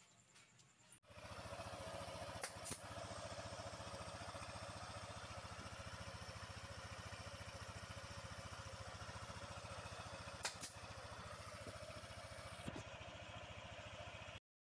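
Yamaha NMAX single-cylinder scooter engine running steadily at idle with the CVT cover off, its aftermarket drive pulley and belt exposed. A few sharp clicks come through over the running.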